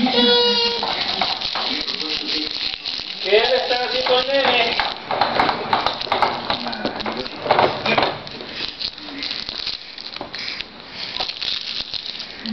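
Plastic clatter and rattling from a baby walker: its toy tray and frame knocking about as it rolls on a tiled floor. A short wavering voice is heard about three seconds in.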